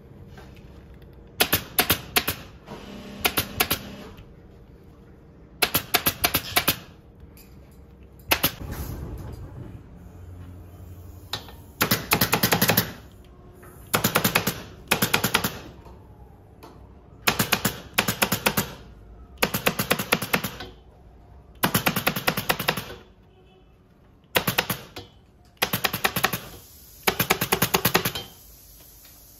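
Pneumatic upholstery staple gun firing staples through sofa fabric into the wooden frame, in quick runs of several shots, about a dozen runs with short pauses between.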